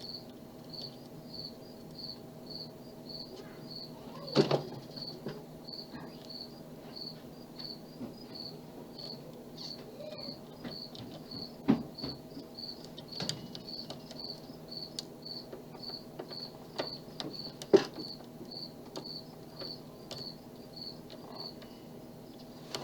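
Faint metallic clicking and scraping of a lock pick and tension bar working the pin stack of a Master Lock Magnum M1XDLH padlock, with four sharper clicks spread through. A cricket chirps about twice a second over a low steady hum.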